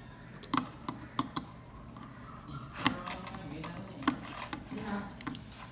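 A small screwdriver clicks and scrapes against screws on a circuit board in a plastic case, giving a handful of separate sharp ticks with light rubbing between them.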